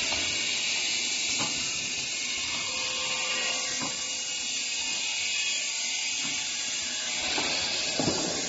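Automatic can seaming machine and its can conveyor running: a steady high hiss with a few sharp knocks as cans are seamed and moved along the line.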